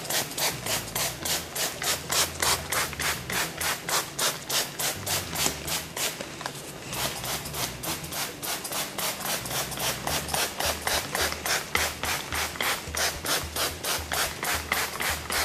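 Hand trigger spray bottle squirting water onto a wall in rapid repeated pumps, about five short sprays a second, with a brief pause about halfway through.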